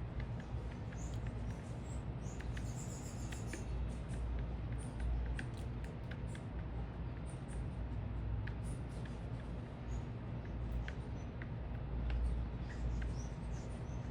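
Small birds at a feeder: short high chirps and scattered light ticks and taps, with a brief rapid trill about three seconds in, over a steady low rumble of city background.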